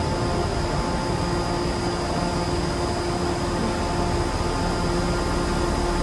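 Steady mechanical hum of an enclosed railway station platform, with a few constant humming tones running through a level background noise.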